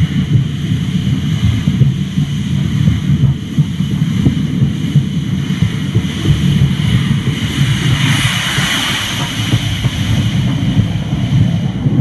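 Steam locomotive approaching slowly and rolling over the track, picked up from between the rails by a phone in a protective case: a muffled low rumble, with a steam hiss swelling about eight seconds in as steam billows around the wheels.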